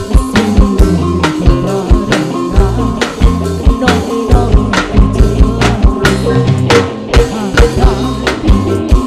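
Live dangdut koplo band music: a steady, fast drum beat under electric bass, guitar and tambourine.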